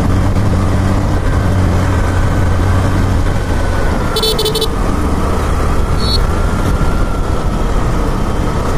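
Motorcycle engine running steadily at road speed under heavy rushing wind noise. A short horn toot sounds about four seconds in.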